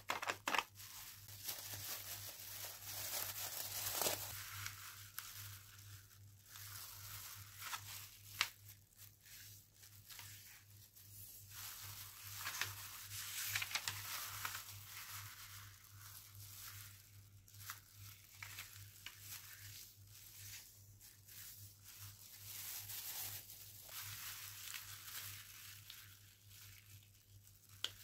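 Clear plastic disposable gloves crinkling and rustling as gloved hands fold and crease a sheet of origami paper, with scattered sharper crackles and paper snaps. A faint steady low hum runs underneath.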